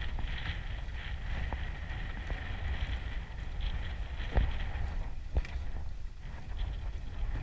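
Wind buffeting the microphone over a steady low rumble from a small boat on open water, with two dull knocks about four and five seconds in.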